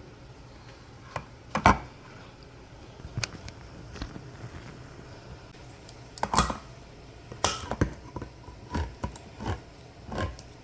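Kitchen clatter as beans go into the chili: scattered clinks and knocks of cans, utensils and pot, about ten over the stretch, the loudest about a second and a half in.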